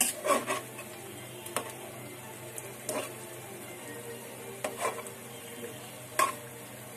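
Spatula stirring rohu fish and shrimp in spice paste in a metal pan, with irregular knocks and scrapes against the pan over a soft sizzle: the fish being sautéed (koshano) in turmeric and chili paste.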